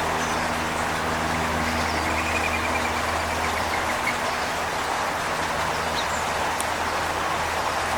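Steady hum and rush of a motor vehicle's engine running nearby, fading out about halfway through. A bird gives a short high trill of rapid notes about two seconds in.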